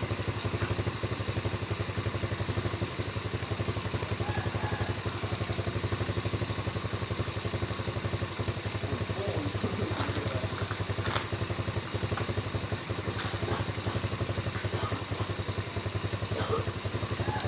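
An engine idling steadily close by, with an even pulsing beat and no change in speed; a few light clicks come through about ten seconds in.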